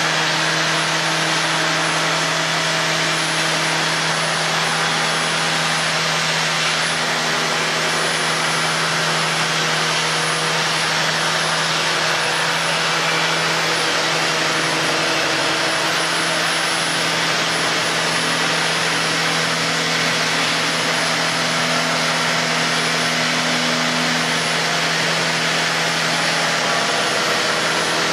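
Handheld electric belt sander running continuously as it sands along the curved edge of a long wooden piece: a steady motor whine over the hiss of the abrasive belt on wood.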